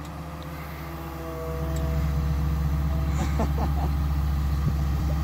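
John Deere 200 excavator's diesel engine running steadily, growing louder about a second and a half in and holding there as the machine swings.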